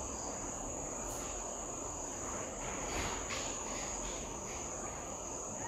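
A felt-tip marker writing on a whiteboard, giving a few faint short scratches. Under it runs a steady high-pitched whine or trill.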